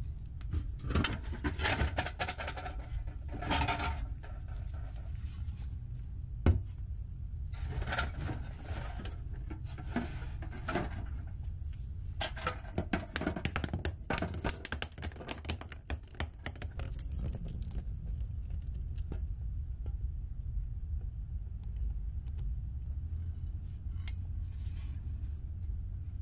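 Bursts of clicking and metallic rattling as a rusty steel lunch box and an old thermos bottle are handled and opened, with quiet stretches between. A steady low hum runs underneath.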